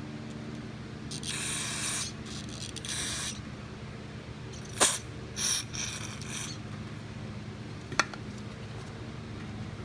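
Aerosol carburetor cleaner sprayed in five short hissing bursts through a straw nozzle into the small holes and passages of a Honda GCV160 carburetor, cleaning out the jets. A single click comes near the end, over a steady low hum.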